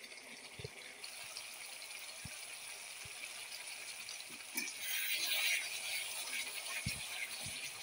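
Mustard-sauce curry boiling in a kadai, hissing and bubbling with a few low pops; the sizzle grows louder about five seconds in.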